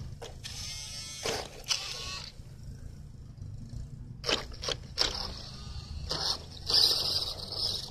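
Toy RC car modelled on Dom's Ice Charger driving past in short bursts, its electric motor whirring and its tyres scraping over sand and grass. The longest burst comes near the end.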